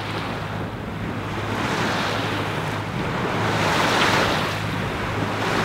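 Wind and water rushing past a sailing yacht under way, swelling and easing slowly, with wind buffeting the microphone and a steady low hum underneath.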